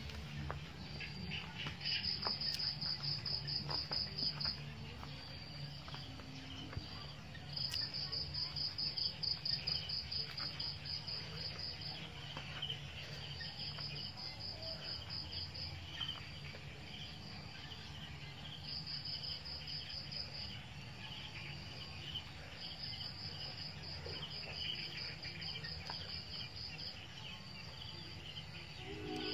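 Insects, cricket-like, chirping in high, rapidly pulsed trills of a few seconds each that repeat with short gaps, over a low steady hum.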